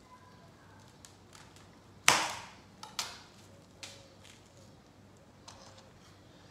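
A kitchen knife cutting through a firm, chilled log of cookie dough and knocking on a cutting board. There are a few sharp knocks, the loudest about two seconds in, with smaller ones around three and four seconds in and again near the end.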